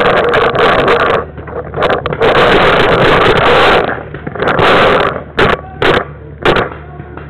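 Loud rushing, rumbling noise on a camera microphone strapped to a paintball marker, cutting out and coming back in stretches, then a few short sharp pops in the last two seconds.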